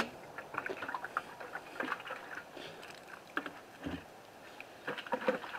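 Faint handling noises of a plastic maple-sap bucket and its lid: scattered small clicks and rustles, with a soft thump about four seconds in.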